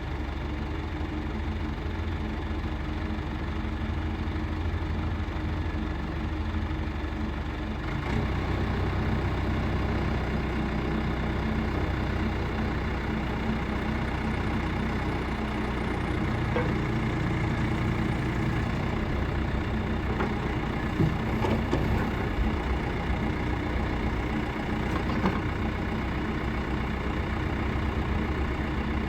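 John Deere 310D loader backhoe's diesel engine running steadily, a little louder from about eight seconds in.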